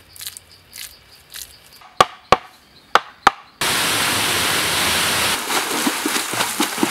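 Four sharp knocks in two pairs, then the steady rushing of a waterfall that cuts in abruptly about three and a half seconds in and is the loudest sound.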